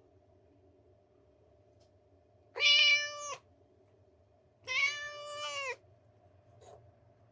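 Persian cat meowing twice, about two seconds apart; each meow lasts about a second and holds a steady pitch.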